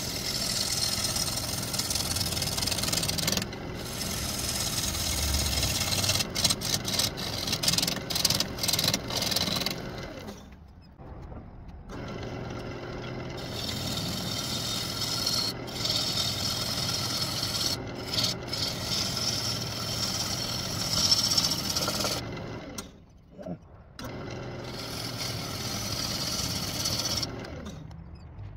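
A turning tool cutting into a spinning walnut crotch bowl blank on a wood lathe makes a steady hissing scrape as shavings come off, over the low hum of the lathe. Around six to nine seconds in the cut comes and goes in quick breaks, and it drops away twice, at about ten seconds and about twenty-three seconds in.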